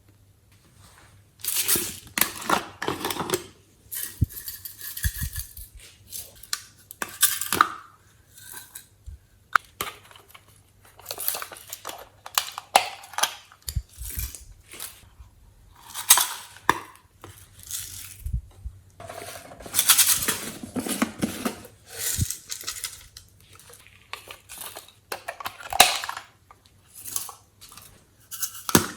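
Glossy slime being squished and mixed by hand, giving irregular bursts of sticky clicks, pops and crackles.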